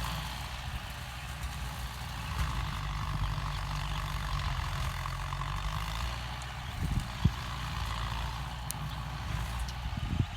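Kubota M9540 tractor's diesel engine running steadily under load while its rotary implement churns through pineapple plants. A single sharp knock comes about seven seconds in.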